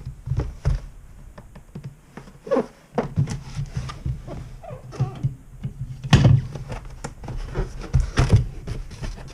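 Cardboard box of a toy RC plane being handled and opened by hand: a run of knocks, thumps and scraping, the loudest thumps about six seconds in and again around eight seconds.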